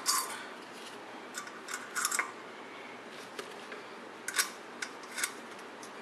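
A handful of light metallic clicks and taps, irregularly spaced, as steel washers and nuts are slipped onto the studs of an exhaust heat-riser flange and started by hand.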